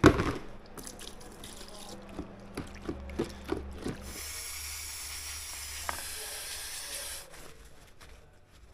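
A metal part knocked and clinked as it is handled, several short hits, then a steady hiss lasting about three seconds that fades near the end.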